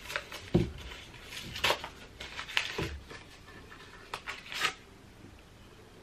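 Paper packaging rustling and crinkling as a vacuum-cleaner attachment is slid out of its wrapping: a few short, scattered crackles with soft handling knocks.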